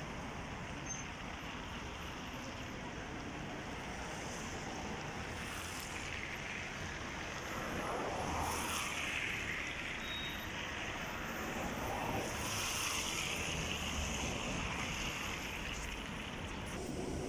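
City ambience: a steady wash of distant road traffic that swells twice, about halfway through and again a few seconds later.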